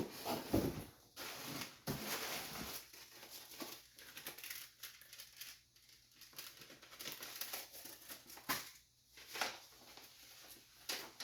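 Paper rustling and crinkling in short, irregular bouts as a letter is opened and unfolded.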